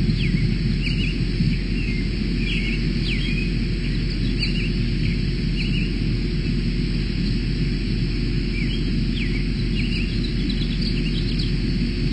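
Birds chirping, many short quick chirps scattered throughout, over a steady low rumble.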